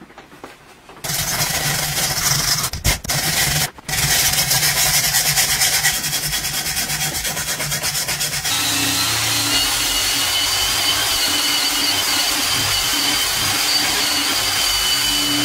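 Charred wooden hammer handle being scrubbed with a wire brush: a loud, steady scraping that starts about a second in and breaks off briefly twice. From about eight seconds a cordless drill spins a round attachment against the wood, a steadier scrubbing with a steady whine, until it stops just before the end.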